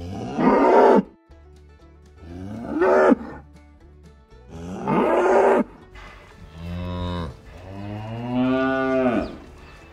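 Cattle mooing: five moos in a row. The first three are shorter and higher, each rising and then falling in pitch. The last two are lower and longer, and the final one is the longest.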